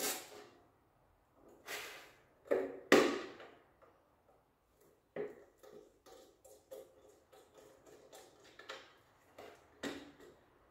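Irregular clicks, taps and knocks of small hardware being handled. A few louder knocks come in the first three seconds, the loudest about three seconds in, followed by a run of lighter ticks.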